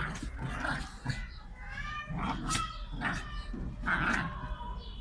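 Two small white dogs play-fighting, vocalising in short, high-pitched bursts with sliding pitch.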